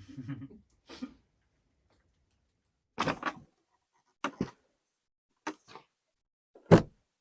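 A fork scraping and knocking in a mug of thick porridge, in five short bursts a second or two apart. The loudest is a heavy knock near the end.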